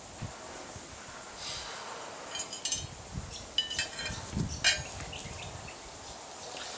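A handful of light metallic clinks and taps of small steel pieces being handled, each with a short high ring, bunched in the middle.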